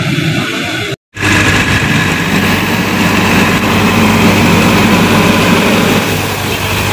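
Diesel tractor engines running steadily. The sound cuts out completely for a moment about a second in, then the steady engine hum resumes.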